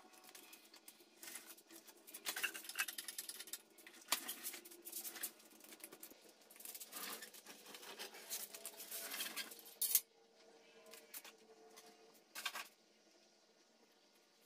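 Rapid metallic clicking of a hand ratchet turning out 12 mm 12-point bolts, with metal tools clinking against each other. It stops with a sharp clink about ten seconds in, leaving a few faint clicks.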